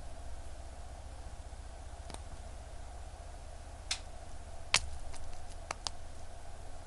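A few small, sharp clicks and taps of metal tools against a wristwatch's case and parts on a workbench, the loudest a single click about five seconds in, over a steady low hum.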